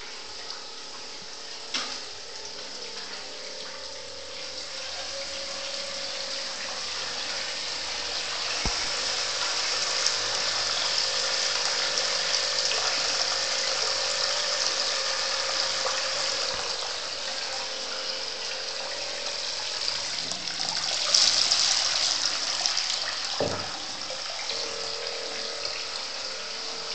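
Water pouring from an LED-lit waterfall bathtub spout into the tub, a steady splashing rush that grows louder over the first several seconds and swells briefly about three quarters of the way through.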